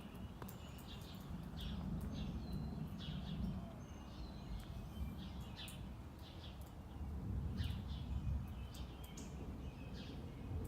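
Small birds chirping in short, repeated calls, several every second, over a steady low rumble.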